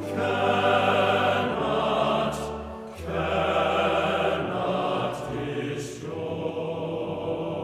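Background music of sustained chords that change about every one and a half seconds, growing thinner and quieter for the last second or so.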